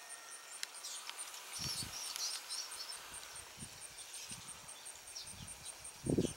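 Tree swallows twittering in short high chirps as the flock flutters around and lands in a sapling, over a steady insect chirping pulsing about four times a second. Low rumbles come and go on the microphone, the loudest near the end.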